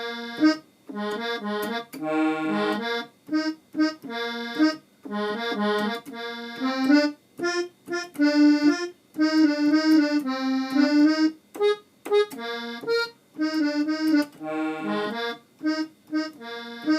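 Electronic keyboard set to an accordion voice playing a short, choppy chord groove in F, the same pattern repeating over and over.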